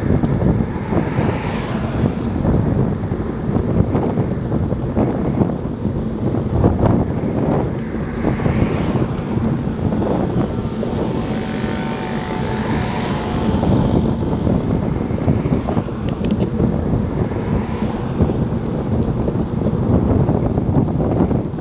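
Wind rushing and buffeting over the microphone of a camera on a moving road bike, with a motor vehicle swelling past around the middle.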